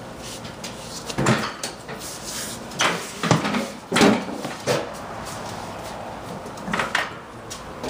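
A 2000-pound solid-core safe on a safe dolly being pushed through a doorway: about six scattered knocks and clunks as the dolly and safe bump and shift, the loudest about halfway through.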